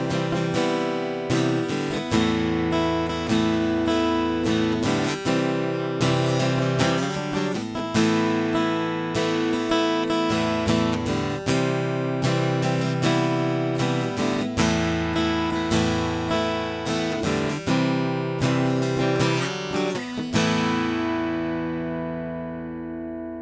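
Ovation Celebrity Elite CE44 steel-string acoustic guitar played as a steady run of chords with frequent attacks. The last chord is left to ring and slowly fade away near the end.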